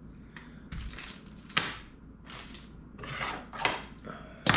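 Handling noise from a paper sheet and a small plastic bag of parts: a few short rustles and light knocks, the sharpest about one and a half seconds in and another near the end.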